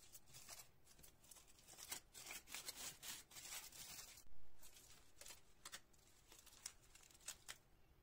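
Aluminium foil crinkling and tearing in a quick series of faint crackles as it is peeled off stainless steel cake rings, with one dull knock about four seconds in.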